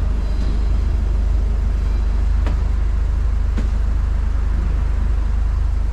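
Mk6 Volkswagen Golf R's turbocharged four-cylinder engine running steadily with a deep, even exhaust rumble. Two faint ticks are heard in the middle.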